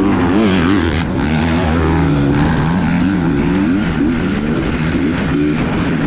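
Several off-road dirt bike engines running hard together, their pitch swinging up and down again and again as the riders work the throttle and shift.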